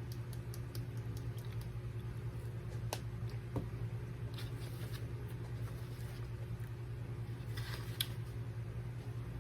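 Steady low background hum with a few faint clicks, a sharper click about three seconds in and a short crackle a little under eight seconds in.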